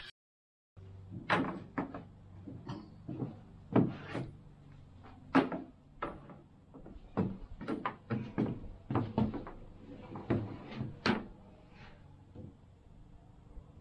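A string of irregular knocks and clunks, about one or two a second, as objects are handled and set down. They thin out near the end.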